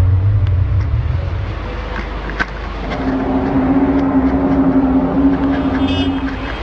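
Loud, unexplained droning noise of the kind reported as a 'strange sky sound': a deep hum that fades after a second or two, then from about three seconds in a steady, higher-pitched drone held for several seconds, with a sharp click in between.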